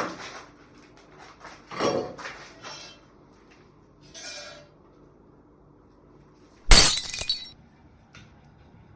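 Something hard breaking: a few short crashes, then a loud shattering crash with a ringing tail about seven seconds in.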